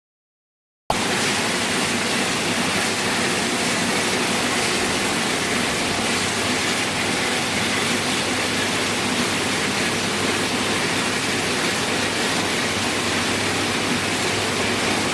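Crate washing machine running: a steady rush of spraying water with a faint low hum underneath, starting abruptly about a second in.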